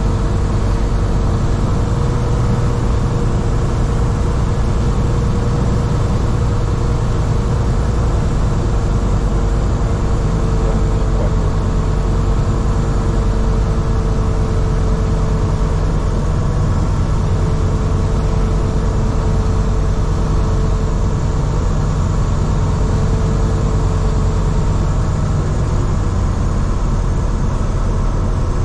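Grob G109B motorglider's 100 hp Rotax 912 engine and MT constant-speed propeller running steadily, heard from inside the cockpit as a deep rumble with a steady whine over it.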